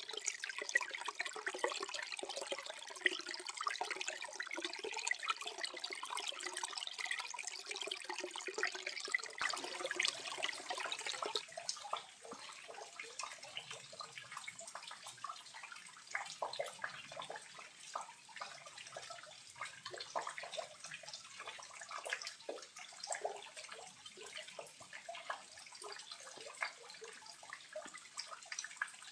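Small, low-flow waterfall trickling and splashing. About a third of the way through, the sound thins to quieter, scattered splashes and drips.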